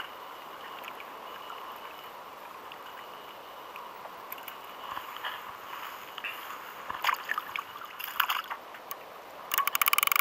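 Water lapping against a plastic sit-on-top kayak, with small scattered clicks and knocks of hands working a hook and bait. Near the end a fast, even run of loud clicks starts, a multiplier fishing reel paying out line.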